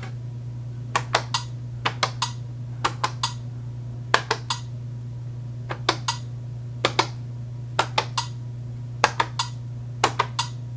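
Plastic push-buttons on a Giiker Smart Four light-up game board clicking as they are pressed one after another during a Lights Out puzzle, irregularly and often in quick pairs. A steady low hum runs underneath.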